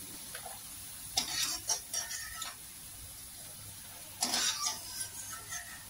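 Taro (arbi) fingers deep-frying in hot oil in a kadhai, a steady soft sizzle, with two spells of clinking and scraping as a wire-mesh spider spoon pushes more pieces off a plate into the pan, about a second in and again about four seconds in.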